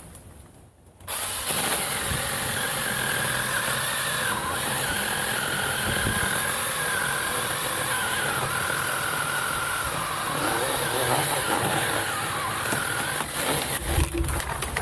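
Alloyman 6-inch 20-volt battery mini chainsaw running and cutting wood: a steady high motor whine whose pitch wavers under the load of the cut. It starts about a second in and stops near the end.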